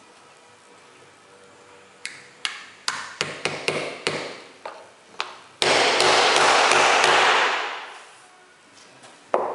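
A hammer tapping about ten times in quick succession, then a loud rushing hiss that lasts about two seconds and dies away, and one last sharp knock near the end.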